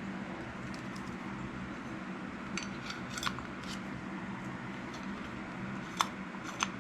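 A few small sharp clicks and snips of the tag end of fishing line being trimmed and a Zebco 33 closed-face reel being handled, the two sharpest near the end, over a steady low hum.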